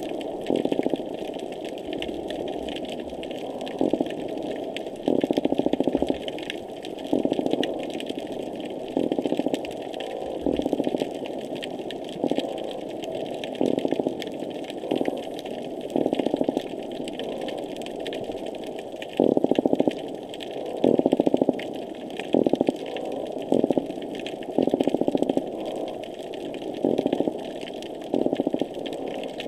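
Underwater noise picked up by a hydrophone: the repetitive noises found just below the surface, here intense. They come as irregular bursts every second or two over a steady background, with a fainter fine crackling above them.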